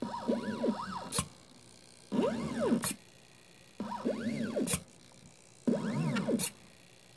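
Stepper motors of a 3D-printed mini CNC pen plotter whining through short moves, each a pitch that rises and falls as the axis speeds up and slows down. Four moves about a second apart, each ending in a sharp click.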